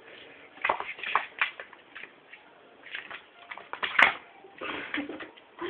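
Small kitten's paws and claws scrabbling and knocking on a hard floor as it pounces after a laser-pointer dot: irregular short scrapes and taps, with one sharp click about four seconds in.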